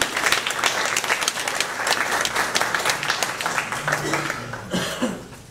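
Audience applauding, a dense patter of claps that thins out and dies away near the end.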